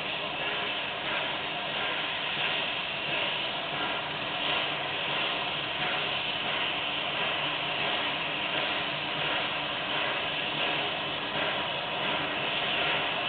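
ALCO 2-8-0 Consolidation steam locomotive working steam as it approaches, its exhaust chuffing in an even beat over a steady hiss of steam.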